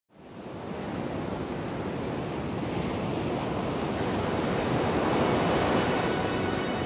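Sea waves and wind rushing steadily, fading in at the start and swelling a little toward the end. Faint music tones begin underneath near the end.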